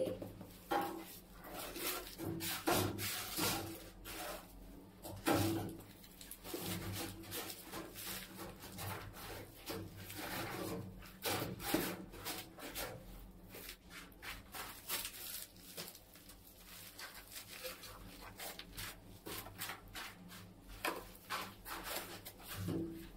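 Ceramic wall tile being bedded into combed tile adhesive: gloved hands rubbing and shifting the tile against the wall, with irregular light taps of a rubber mallet.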